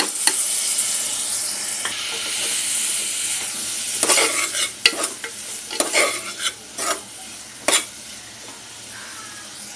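Washed dried shrimp (jawla) sizzling in hot oil and masala in an aluminium pressure cooker, loud at first and dying down over a few seconds. From about the middle, a steel spoon stirs and scrapes the pot in a series of short strokes.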